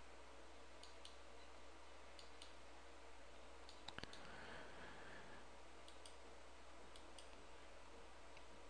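Near silence with a few faint ticks, then a computer mouse clicking twice in quick succession about four seconds in.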